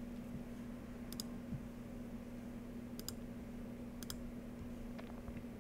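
Three sharp computer clicks, each a quick double tick like a button pressed and released, about a second in, about three seconds in and about four seconds in, over a faint steady hum.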